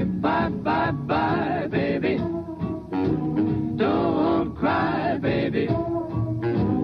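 Swing-era big band music with a singer, from an old recording with little treble; the sung notes waver with vibrato.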